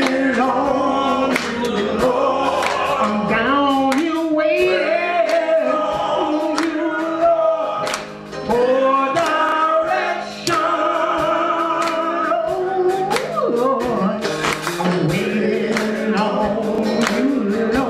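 A male gospel chorus sings, with a lead vocalist in front, and hand claps keep time throughout.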